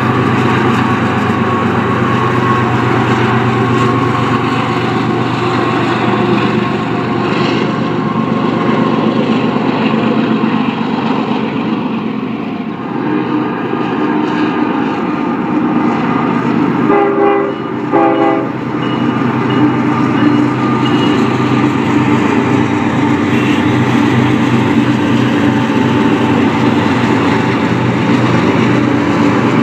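Union Pacific diesel freight locomotives running past with a steady engine drone as their intermodal train rolls along the rails. About 17 seconds in, a locomotive horn sounds two short blasts. Then the lead locomotives pass close by.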